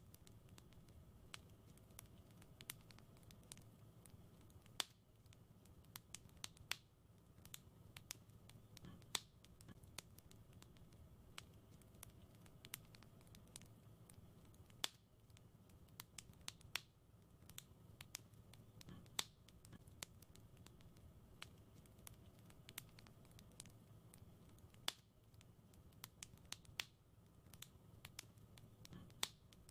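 Fireplace fire crackling softly: irregular sharp pops and snaps, several a second, a few louder than the rest, over a faint steady low rumble of the burning fire.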